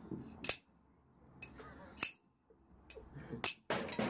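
Glass bottle being struck by hand, giving three sharp clinks about a second and a half apart. Near the end a louder rush of noise begins.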